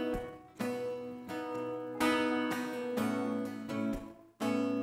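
Acoustic guitar strumming slow chords, each left to ring, with a fresh chord struck every second or so and a brief drop in sound just before the last one near the end.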